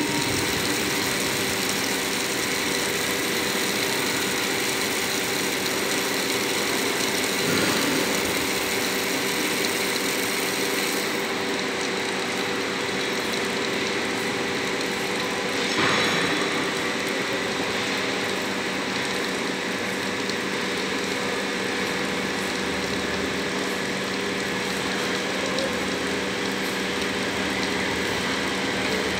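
Steady mechanical drone of running machinery, a constant hum with a few held tones over an even noise.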